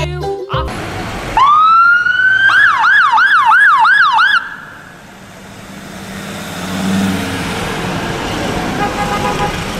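Ambulance siren on a Mercedes van ambulance: a rising wail that breaks into a fast yelp of about four sweeps a second, then cuts off suddenly. Road noise from the van driving past follows.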